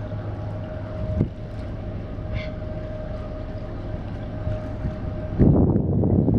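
Inland cargo ship's engine running steadily: a low hum with a steady whine above it, and a single click about a second in. About five seconds in, wind buffeting the microphone sets in abruptly and becomes the loudest sound.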